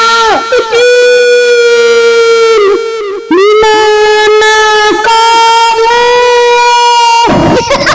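A high, wailing ghostly voice holding long steady notes on one pitch, each note dipping as it breaks off before the next begins: the drawn-out wail of a kuntilanak, the Indonesian female ghost.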